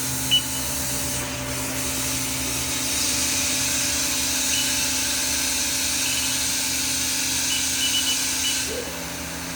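Haas VM-3's high-pressure through-spindle coolant running: a steady hiss of coolant jetting through the thread mill over the machine's steady hum, cutting off near the end. Short high beeps sound several times.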